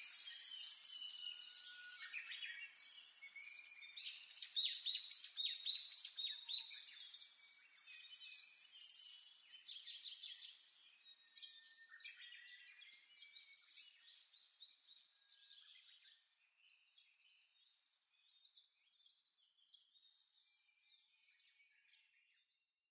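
A chorus of songbirds chirping and singing, with many short calls that are busiest in the first ten seconds and grow sparser and fainter until they fade out near the end. A thin, high, steady trill sounds above them for long stretches.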